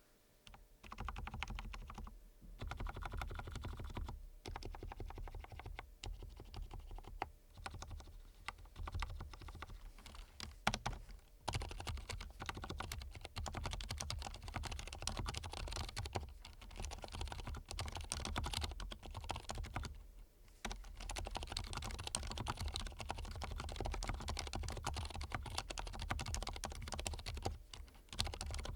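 Steady typing on an Archon K77 mechanical keyboard with lubed Cherry MX Silent Red linear switches: a fast, continuous run of keystrokes, broken by a few short pauses.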